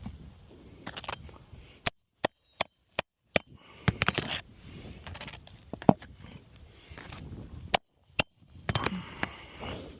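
Hammer driving roofing nails through 3-tab asphalt shingles: a quick run of five sharp strikes about two seconds in, then a few single blows among rustling and scraping of the shingles.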